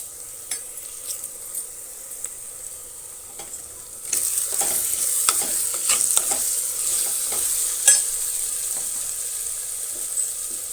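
Onions and tomatoes frying in oil in a clay pot (chatti), sizzling while a spatula stirs and scrapes with scattered clicks; the sizzling grows louder about four seconds in.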